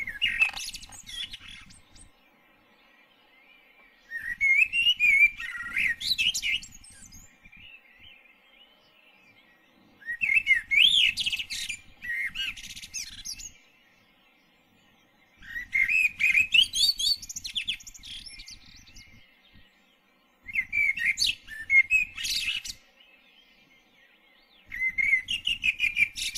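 A songbird singing loud warbling phrases of two to three seconds, each with rising and falling notes and a high twitter, repeated about every five seconds with short pauses between.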